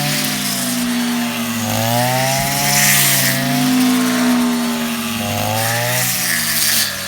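Rice harvester's engine running hard, its pitch sagging and recovering several times, with a hiss of cutting over it.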